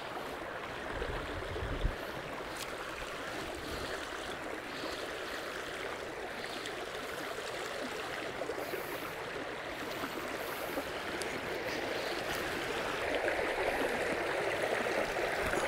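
Water of a small meadow brook running steadily, a little louder near the end, with a soft knock about two seconds in.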